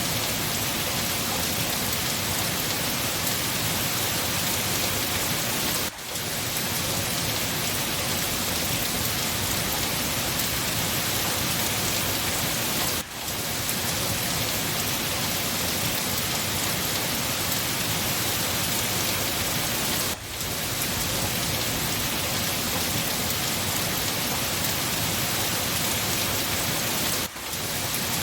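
Steady, heavy rain hiss with no pauses in the downpour, dipping briefly in loudness four times, about every seven seconds.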